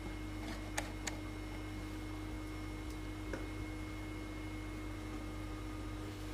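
Steady low electrical hum with a few faint clicks, about a second in and again a little after three seconds.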